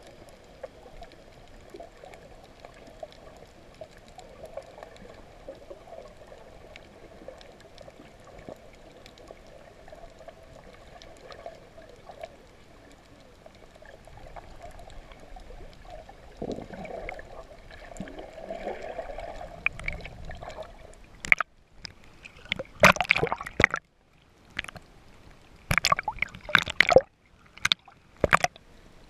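Underwater sound picked up by a camera in a waterproof housing: a steady muffled hum with faint scattered clicking. About three quarters of the way in, the camera breaks the surface, and water splashes and sloshes against it in loud, irregular bursts with brief gaps.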